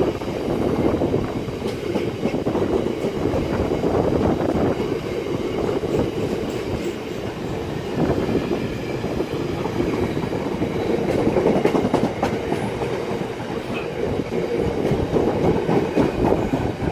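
A long freight train rolling slowly past on the track, its wagons making a steady rumble with scattered clicks of wheels over the rail.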